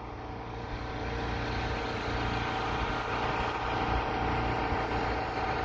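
An engine running steadily, getting louder over the first few seconds and then holding level.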